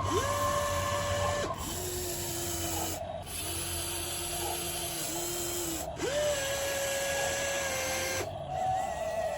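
Electric gear motors of a radio-controlled toy excavator whining. Each run spins up quickly, holds a steady pitch for one to three seconds and stops abruptly, and the pitch switches between higher and lower as different motors work.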